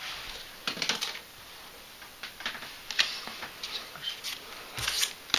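Trading cards and booster packs being handled: scattered light taps and rustles as cards are set down and the next pack is picked up.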